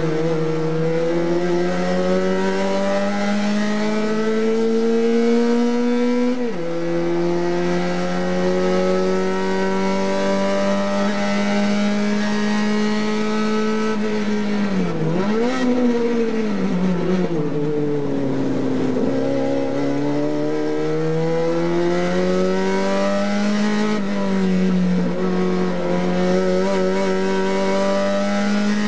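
A race car's engine heard from inside the cockpit, pulling hard with its pitch climbing through the revs. There is a sharp drop at a gear change about six seconds in. Around halfway the note falls and swings up and down for a few seconds as the car slows for a corner, then climbs again, with another shift near the end.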